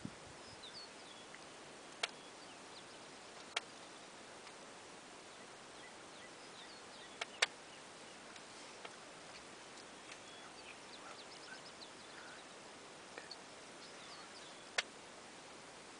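Faint, scattered chirps of small songbirds over a steady hiss, with five sharp clicks or snaps spread through, the loudest a close pair about halfway.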